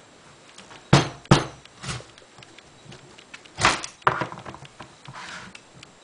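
Large kitchen knife chopping through a winter squash on a plastic cutting board: sharp knocks as the blade drives through the hard rind and strikes the board, two about a second in, a lighter one soon after, and a loud pair near four seconds.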